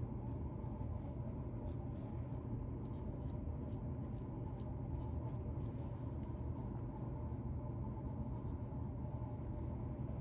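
Close-up scratching in a beard to loosen dandruff: continuous rasping through the hair and skin, dotted with many small crackles.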